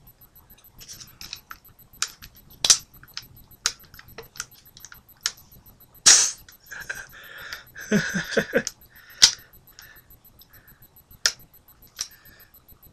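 Scattered sharp clicks and knocks, a few of them loud, as an airsoft M203 grenade launcher is handled.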